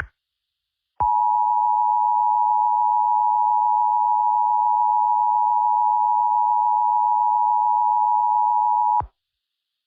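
Emergency Alert System attention signal: the two-tone alarm of 853 and 960 Hz sounded together, a steady tone that starts about a second in, holds for about eight seconds and cuts off abruptly.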